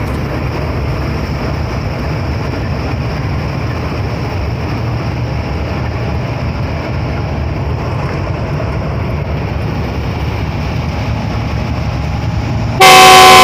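GEU40 diesel-electric locomotive idling with a steady low rumble. Near the end its horn sounds a loud multi-tone blast, the second departure signal.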